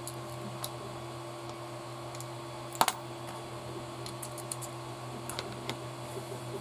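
Small light clicks and taps of hard plastic kit parts and metal bearings being handled and pressed together during an RC car build, with one sharper double click a little under three seconds in. A steady low hum runs underneath.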